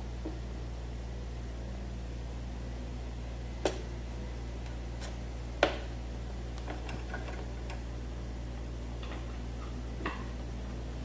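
Steady low hum, with two sharp clicks about a third and about halfway through and a few lighter taps after them: plastic being handled close to the microphone.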